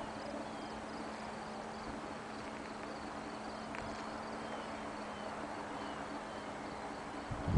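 Insects chirping steadily in the background, a few even chirps a second, over a quiet outdoor ambience. A gust of wind hits the microphone at the very end.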